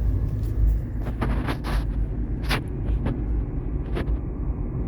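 Steady low rumble of a car heard from inside the cabin, with a few scattered short clicks.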